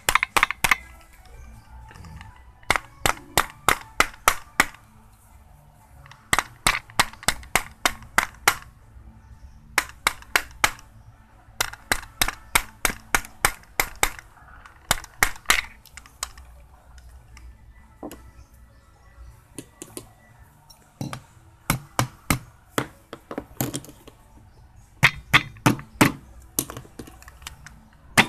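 Rapid, sharp taps on the metal housing of a 1989 Mazda Capella's radiator fan motor, in runs of several taps about five a second with short pauses between. The end cap is being knocked lightly to seat it after a brush replacement.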